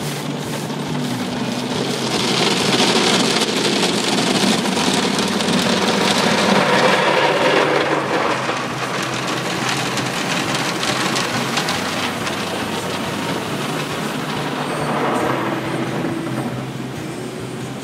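Water jets of an automatic car wash spraying and splashing against the windshield and body of the car, heard from inside the car as a continuous hiss. It is loudest in the first half and eases off a little later on.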